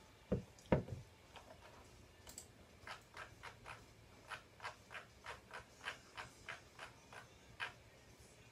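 Two dull knocks, then a run of about fifteen light clicks, roughly three a second, for some five seconds, like buttons being pressed over and over.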